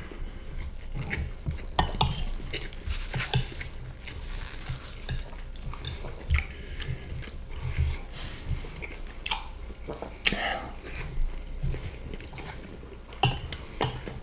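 Metal spoons scraping and clinking against ceramic plates as rice, chicken stroganoff and crunchy shoestring potato sticks are scooped up, with close-up chewing in between. The clicks and scrapes come irregularly throughout.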